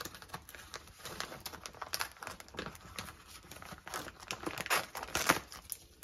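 Plastic food packaging crinkling and rustling as it is handled, in irregular bursts that are loudest about four to five seconds in.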